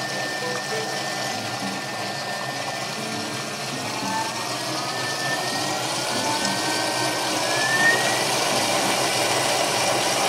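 Thermomix TM6 food processor's motor and blade puréeing a hot sauce. Its steady whirr rises in pitch and grows louder in the second half as the speed is turned up step by step from 5 toward 8.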